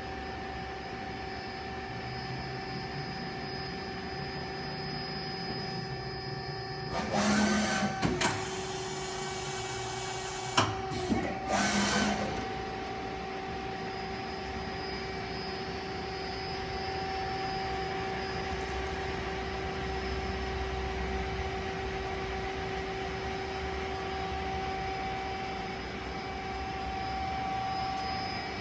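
2003 Okuma ES-L10 CNC turning center running through a program: a steady machine hum with two held tones. About seven seconds in and again about eleven seconds in come loud bursts of rushing noise, each about a second long, with a sharp click between them.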